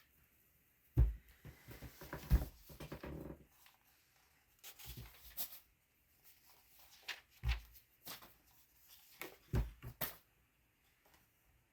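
A few separate thumps and knocks, the loudest about a second in and again near the end, with a stretch of rustling between the first two.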